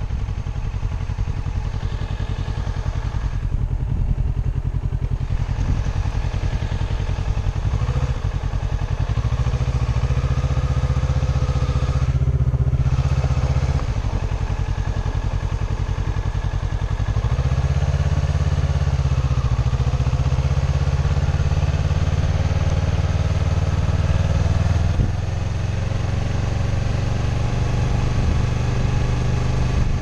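Sport motorcycle engine running on a gravel road, with the crunch of tyres on loose gravel and wind on the helmet-mounted microphone. The engine note steps up and down a few times as the throttle changes.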